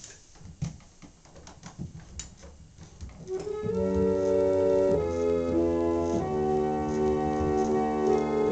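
Late-19th-century foot-pumped reed organ: after about three seconds of scattered clicks and knocks, sustained chords start sounding and change every second or so.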